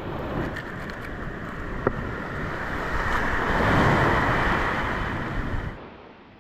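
Surf washing up a sandy beach: waves breaking in a broad rush that swells to its loudest about four seconds in, then cuts off abruptly near the end.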